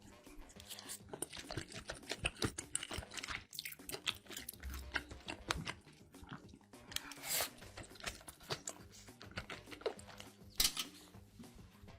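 Close-miked crunchy eating: bites and chewing of crisp food with dense crackling, and a couple of louder crunching bites near the middle and near the end.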